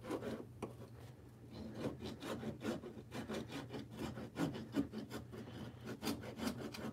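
Small hand saw cutting through the foam and plywood edge of a model railroad layout: a quiet run of short back-and-forth scraping strokes, several a second.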